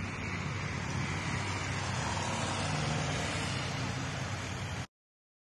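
A motor vehicle engine running steadily, with a low even drone, that cuts off abruptly just under five seconds in.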